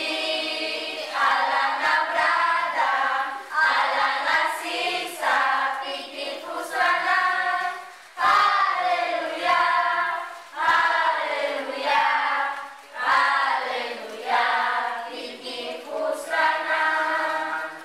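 A group of children singing together, in short sung lines with brief pauses between them.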